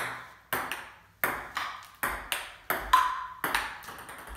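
Table-tennis rally: the ball clicks sharply back and forth off the paddles and the STIGA table, about two hits a second in an uneven rhythm, one hit ringing briefly about three seconds in.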